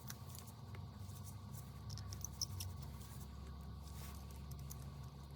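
Faint scattered light clicks and scratches of small repair tools working on a smartphone's internals, over a low steady hum.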